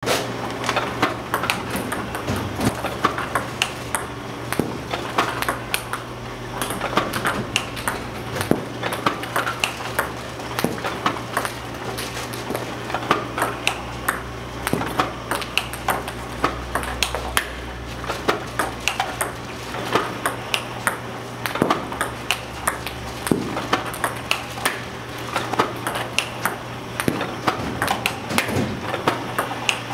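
Table tennis balls clicking in a quick, steady rhythm as a ball robot feeds them and a player loops them back with a paddle, each ball ticking off the paddle and bouncing on the table. A steady low hum runs underneath.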